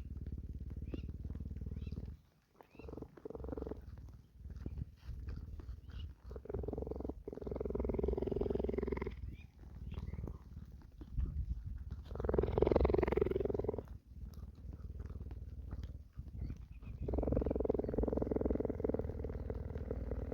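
A cheetah purring close up: a steady low rumble that swells louder every few seconds. Rain patters over it in small scattered ticks.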